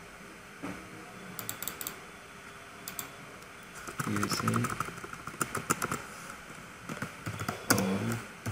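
Computer keyboard keys clicking in short quick runs as a search query is erased and retyped. Two brief low murmurs of a voice come in, about four seconds in and near the end.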